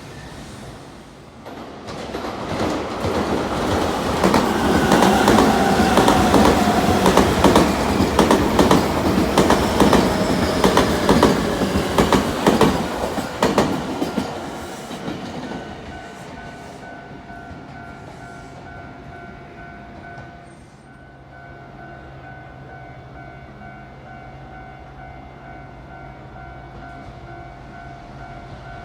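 Nankai Koya Line electric commuter train passing close by, wheels clattering rapidly over the rail joints, building up over the first few seconds and fading away about 15 seconds in. After it has gone, a level-crossing warning bell keeps ringing with a steady, repeating tone.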